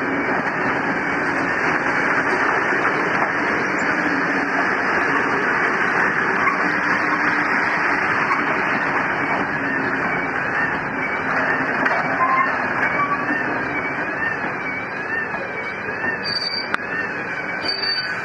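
Passenger carriages rolling past over the rails, a steady rumble and clatter of wheels on track. From about halfway a siren rises and falls about once a second.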